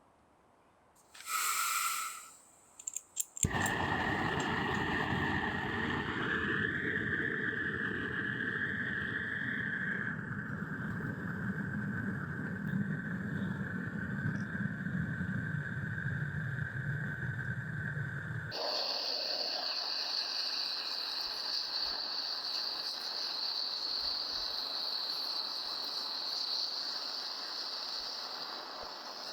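A gas burner starts after a short hiss and a few clicks, then runs with a steady rushing hiss, a low rumble and a whistling tone. About two-thirds of the way through the rumble drops away, leaving a thinner, higher-pitched hiss and whistle.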